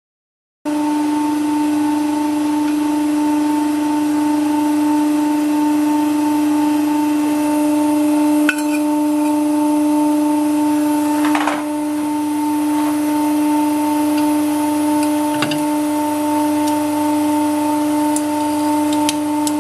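Hydraulic press's pump motor humming steadily at one constant pitch, starting under a second in. A few light knocks and clicks come partway through and near the end, as the metal oil can is handled and the ram comes down onto it.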